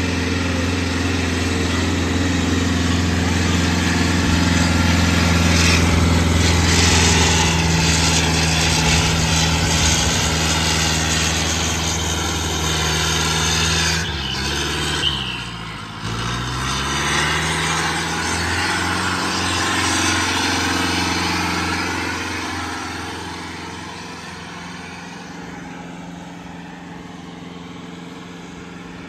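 A diesel tractor engine, newly fitted with a turbocharger, runs hard under load while pulling a field implement. About halfway through, its pitch dips and climbs back as it is revved, and then the sound fades as the tractor drives away.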